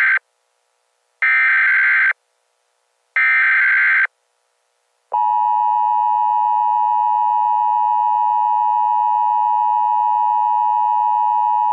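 Emergency Alert System tones: about one-second bursts of harsh digital data screech, the SAME header, repeated with short gaps. About five seconds in, the steady two-tone EAS attention signal starts and holds.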